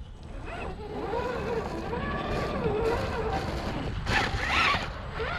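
Whine of an RC rock crawler's electric motor and geared drivetrain, its pitch rising and falling with the throttle over a steady low rumble as it crawls over rock. About four seconds in, a louder rough scraping stretch as the tires grind over the stone.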